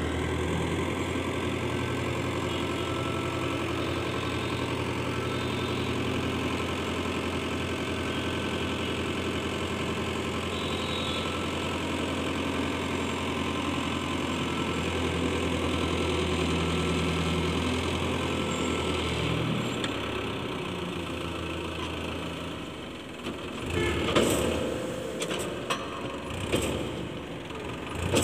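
Powertrac tractor's diesel engine running steadily under hydraulic load while the tipping trolley's body is raised. The engine note drops about two-thirds in. Near the end come a few irregular thumps and knocks as the load of soil slides out of the tilted body.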